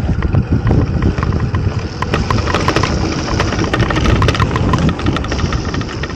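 Transition Repeater e-mountain bike ridden fast down a dirt trail: a steady rumble of knobby tyres and wind buffeting the camera microphone, with frequent quick clicks and rattles from the bike jolting over bumps.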